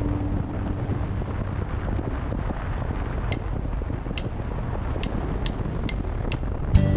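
Wind rushing over the microphone and road noise from a motorcycle riding at highway speed, with a few light ticks in the second half.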